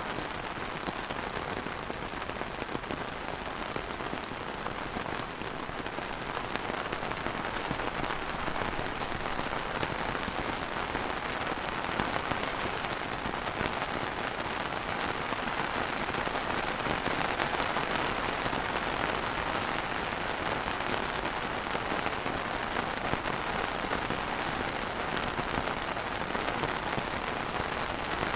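Steady rain falling on a surface, a dense even patter of many drops.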